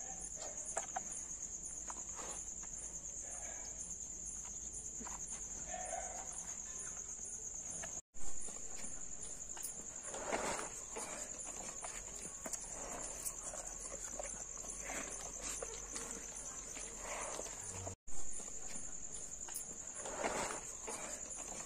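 Crickets chirping in a steady, high, even trill, with now and then the rustle and scrape of feed mash being stirred by hand in a plastic tub. The sound drops out briefly twice, each time followed by a short knock.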